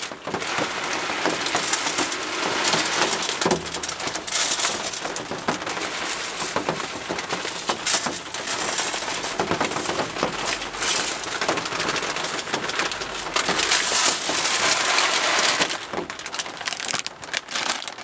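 Bird seed pouring from a plastic bag into a plastic feeder hopper: a continuous rattling hiss of small seeds, with the bag crinkling, swelling louder a couple of times.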